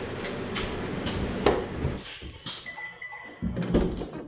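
A 2015 Subaru Outback's power rear hatch moving: the lift mechanism hums for about two seconds with a few sharp clicks, then stops. A few short high beeps follow, then a couple of dull thuds.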